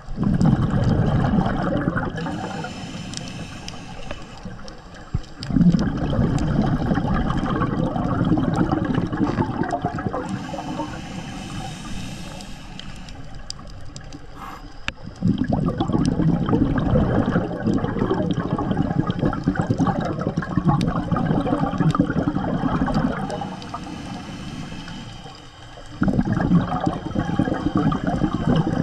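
Scuba diver's exhaled bubbles gurgling and rumbling out of the regulator underwater, in about four long bursts that each start suddenly, with quieter stretches between them as the diver breathes in.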